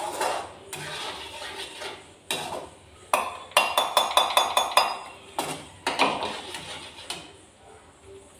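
Metal slotted spoon knocking and scraping against a frying pan while paneer is fried in oil, with scattered single knocks and a quick run of about ten ringing clinks midway.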